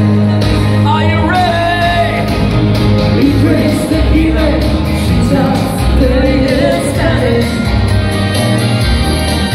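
Live band dance music amplified through a PA, with a woman singing the melody into a microphone over a steady bass line.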